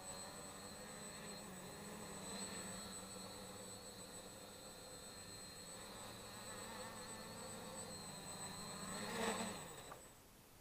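Electric motors and propellers of a 3D-printed quadcopter buzzing steadily in flight. The buzz swells briefly about nine seconds in, then dies away as the quadcopter sets down on the snow.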